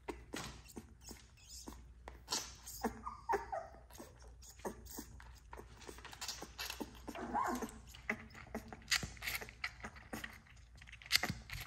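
Newborn XL American Bully puppy suckling at a milk bottle, with many quick wet clicks from its mouth. Short puppy cries come about three seconds in and again about seven seconds in.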